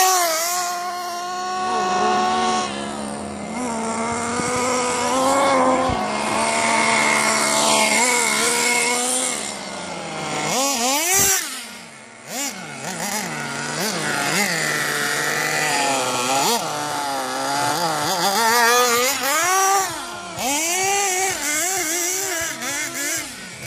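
Radio-controlled off-road buggy driving on asphalt, its motor revving up and down again and again as it speeds past and turns, with a brief drop in sound about twelve seconds in.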